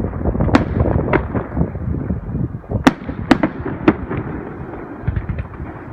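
Fireworks display going off: about five sharp bangs in the first four seconds over a continuous low rumble of explosions, then a few fainter small pops near the end.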